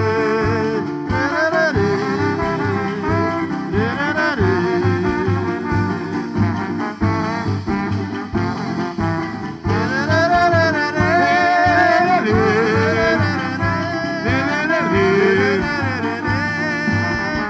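A live band playing a bumba-meu-boi toada between sung verses: a wavering melody line over a steady drum beat.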